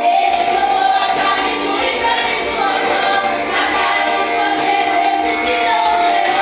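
Worship music: a group of voices singing a hymn together over instrumental accompaniment.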